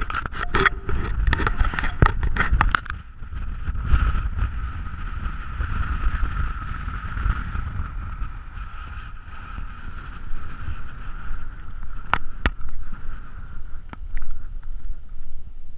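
Wind buffeting the camera's microphone as a low rumble, with a steady faint high hum over it. A quick run of sharp clicks comes in the first three seconds, and two more about twelve seconds in.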